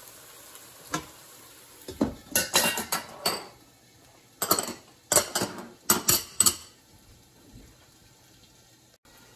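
Metal kitchenware clinking: a stainless steel dome lid set onto a wok and a metal spatula knocked against the steel wok and a steel bowl. One clink about a second in, then two bursts of clattering clinks, over a faint sizzle of the stir-fry cooking.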